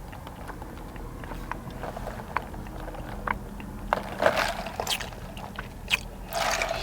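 Lemonade being sipped through a straw, with small clicks from the cup, straw and mouth and a couple of short breathy puffs, over a steady low hum.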